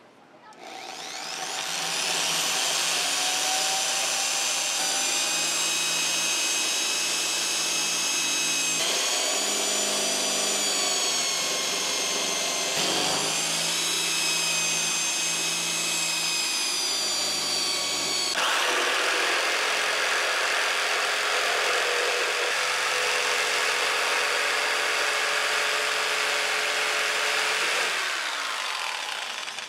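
Corded electric drill spinning up to a high whine and boring a hole through a wooden board, its pitch sagging twice as the bit bites. About eighteen seconds in it gives way to a jigsaw cutting the board, a rougher buzz that stops near the end.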